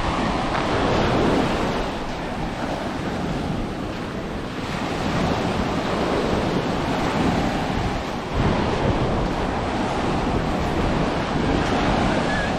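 Sea surf washing onto the shore, its noise swelling and easing, with wind rumbling on the microphone.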